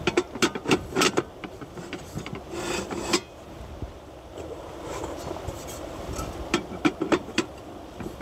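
Irregular knocks, clatters and scraping of hard objects being handled, thickest in the first three seconds and again near the end, with a sharp knock at the very end.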